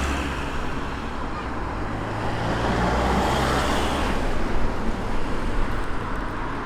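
Street traffic noise: a motor vehicle's engine running with a steady low hum that drops away about four seconds in, over a continuous rush of road noise.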